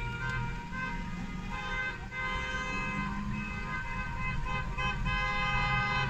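Several car horns honking at once in long, overlapping held blasts, some starting and stopping, over the rumble of passing car traffic.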